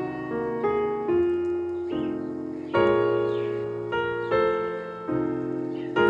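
Background piano music: a slow, gentle melody of single notes and chords struck about once or twice a second, each left to ring and fade.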